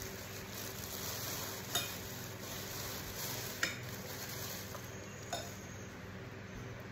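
Metal spoon and fork stirring and scraping in a ceramic plate, with three sharp clinks of the cutlery on the plate, over a steady background hiss and low hum.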